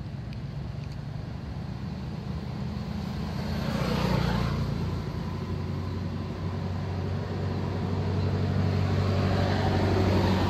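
Motor vehicle engines going by: a steady low engine hum that swells as one passes about four seconds in, then builds again toward the end.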